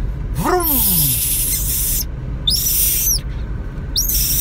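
A baby monkey gives three shrill, raspy screeches: a long one starting about half a second in and lasting over a second, then two short ones with an arching pitch about three and four seconds in. A low voice-like tone slides up and back down at the start of the first screech.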